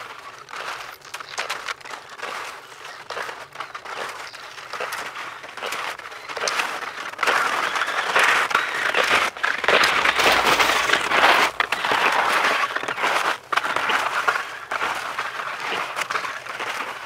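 Skis sliding and crunching over snow, with the crackle of ski pole plants, getting louder as the skier passes close between about 7 and 14 seconds in, then fading as he moves away.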